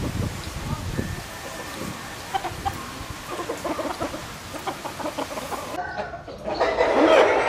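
Bantam chickens clucking in short calls, with louder, more continuous calling starting about three-quarters of the way through.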